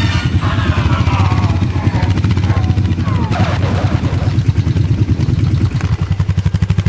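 ATV engine running under way, with a steady pulsing beat. It settles into a slower, more even chug near the end.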